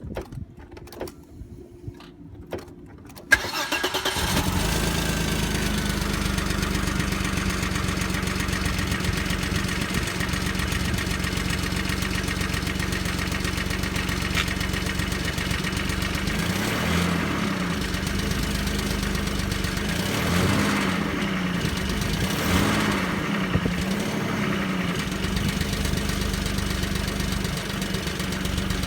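A few clicks, then the 2.8-litre V6 of a 1994 Audi (engine code AAH) starts from cold about three seconds in and settles into a steady idle, heard from underneath the car. The idle wavers a little around the middle.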